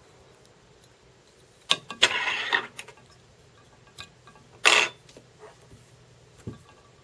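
Small handling noises at a fly-tying vise: a click, then a rasping scrape of under a second, another short rasp about two seconds later, and a light knock near the end.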